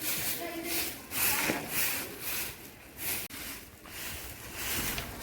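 A broom sweeping bare ground in repeated swishing strokes, roughly one every half second to a second.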